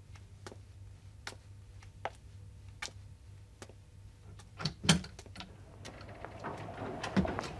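Wall clock ticking steadily, a little under a second between ticks, with a few louder knocks about five seconds in and clatter and rustling building near the end.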